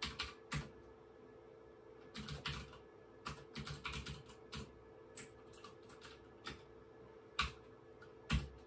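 Keystrokes on a computer keyboard: irregular short runs of typing with pauses between them. The loudest keystroke comes near the end, over a faint steady hum.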